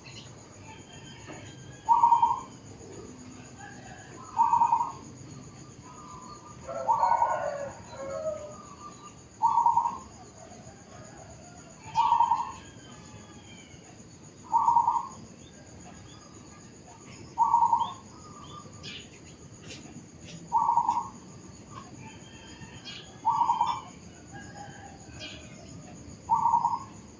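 Zebra dove (perkutut) cooing: about ten short, clear calls repeated every two and a half to three seconds, with faint chirps of other small birds in between.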